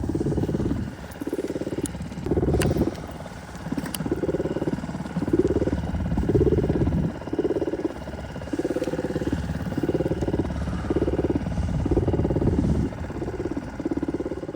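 Small outboard motor of a two-horsepower mini boat running, its hum swelling and fading in a steady pulse about once a second.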